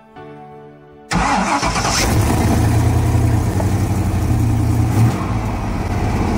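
GM 5.3-litre LS V8 starting about a second in and then running steadily. Before it, only soft background music.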